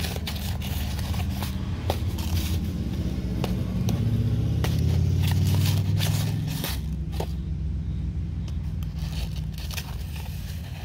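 Scraping and rustling as a clear plastic tub is handled and moved over a magnet, the crushed iron-rich rock grains inside sliding across the plastic, with scattered light clicks. It is louder around the middle.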